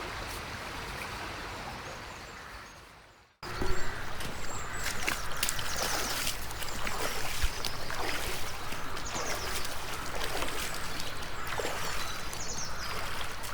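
Running river water that fades out about three seconds in. After a sudden cut, small birds chirp repeatedly over the steady sound of flowing water.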